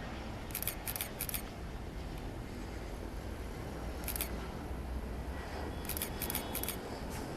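Single-lens reflex camera shutter firing in short runs: three quick clicks about a second in, a single click midway, then three more near the end, over a steady low rumble.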